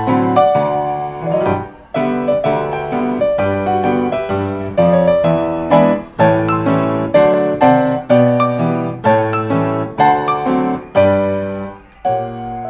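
Solo piano ragtime music playing as a background track, a steady run of struck notes and chords.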